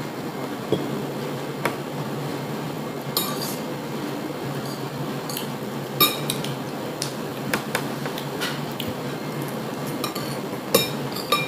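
Metal spoon and fork clinking and scraping against a ceramic plate while eating, in about eight scattered sharp taps over a steady low hum.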